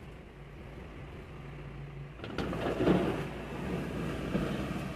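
Hard plastic tool case set down and slid across a wooden tabletop: a rough scraping starts about two seconds in, with a couple of knocks, and is loudest just after. A low hum sits in the background.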